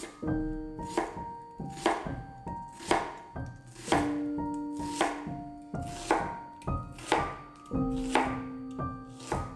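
Kitchen knife chopping on a cutting board, sharp strikes about one to two a second, unevenly spaced, over background music with held notes.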